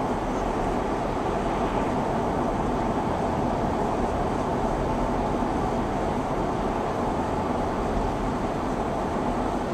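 Steady road noise of a car driving at speed, heard from inside the cabin: a constant tyre and engine rumble with no distinct events.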